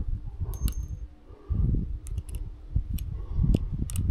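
Scattered small metallic clicks and taps as a drill's screwdriver bit is worked through a magnetiser and screws shift against it in the hand, over a low handling rumble.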